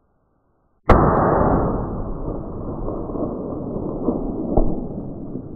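A single hunting rifle shot: a sharp crack about a second in, then a long low rumble of echo that slowly dies away, with a smaller knock near the end.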